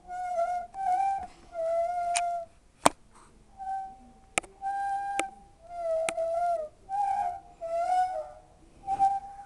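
Hoover W 420 washing machine's worn-out drum bearings squealing: a high, whistling squeak repeated about once a second, nine times, with a few sharp clicks between them.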